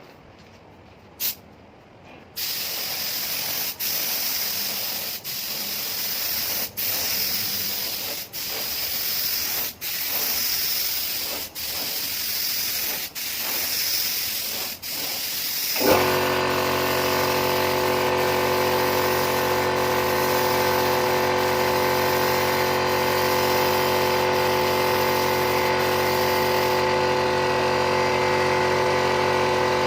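A click, then a loud hiss in repeated stretches broken by short gaps about every one and a half seconds. About halfway through it gives way to a steady machine hum with a whine.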